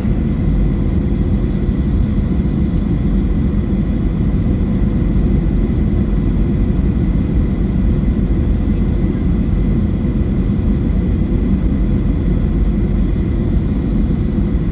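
Steady rumble of a Boeing 737-800 heard from inside the cabin: engine and airflow noise with a few faint steady tones, unchanging throughout.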